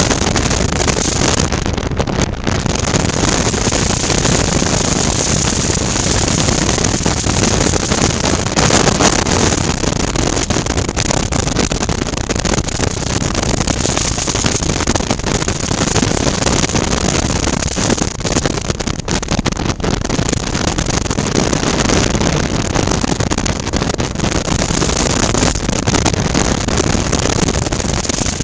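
Motorcycle riding steadily at road speed: wind noise on a helmet-side microphone over the drone of a Suzuki V-Strom 650's 645 cc V-twin engine, the level holding even throughout.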